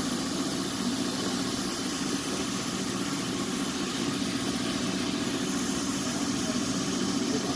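Steady hiss of a twin-hose spray-chrome gun misting reactive solution in a fine atomized spray, over a steady low mechanical hum.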